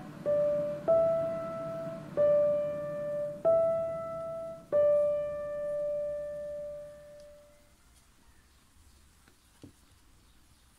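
Background piano music: a slow line of single notes, five struck one after another, the last dying away about seven seconds in. Near silence follows, broken by one faint tap near the end.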